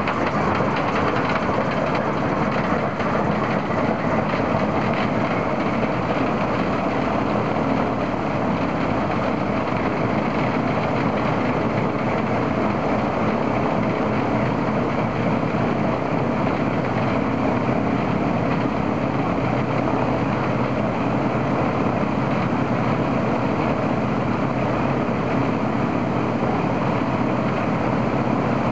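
Ilyushin Il-14's right engine, a Shvetsov ASh-82T 14-cylinder radial, running steadily on a ground run-up to check it after its oil cooler was replaced.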